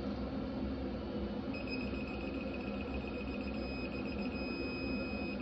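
Electronic torque wrench beeping rapidly, about seven beeps a second, then after a short break holding a steady tone near the end: the signal that the bolt is reaching and then at its set torque.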